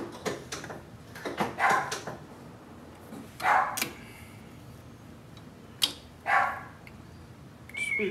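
A dog barking: a handful of short barks, some in quick pairs, with a single sharp click near the end.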